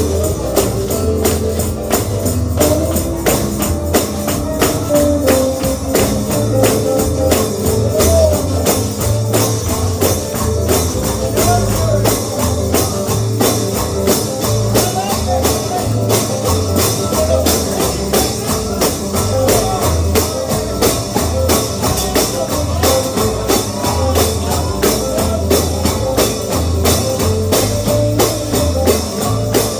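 Upbeat instrumental gospel music: a tambourine struck on a steady fast beat over a pulsing bass line.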